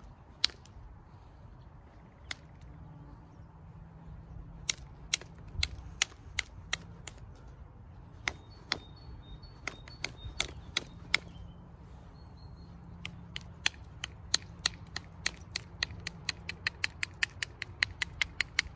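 Flintknapping: sharp clicks as a small striker hits the edge of a flint knife blade, knocking off flakes to shape and thin it. The strikes are scattered at first and come quickly, about three or four a second, in the last few seconds.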